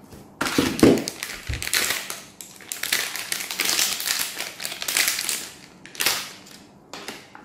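Foil packet crinkling and tearing as it is pulled open by hand: a long run of dense crackles, then two short bursts of crinkling near the end.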